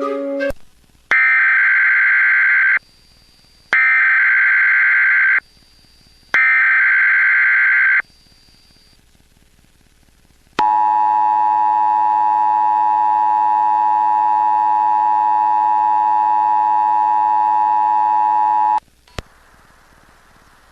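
Emergency Alert System transmission: three bursts of SAME header data tones, each about a second and a half long with short pauses between. After a gap of a couple of seconds comes the steady two-tone EAS attention signal, which runs about eight seconds and cuts off abruptly.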